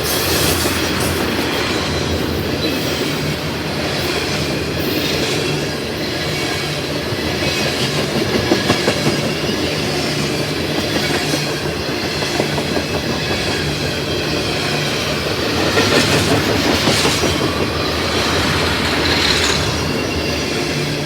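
CSX freight train of tank cars rolling past at close range, a steady rumble of wheels on rail with clusters of clatter over the rail joints about a third and three-quarters of the way through.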